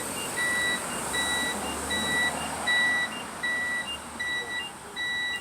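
Warning alarm on a parked UPS delivery truck beeping steadily, a high beep a little over once a second with a short, slightly lower blip between beeps. It has been left on unattended.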